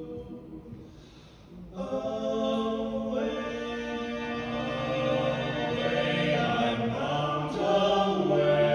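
Barbershop quartet singing a cappella in close four-part harmony. A held chord dies away in the first second; after a short pause the voices come back in and build, growing louder toward the end.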